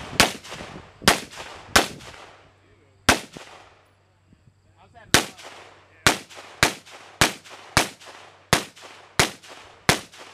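A string of single gunshots from a shouldered long gun, about a dozen in all. Four spaced shots come first, then a pause of about two seconds, then eight more in quicker succession, each shot trailing off in a brief echo.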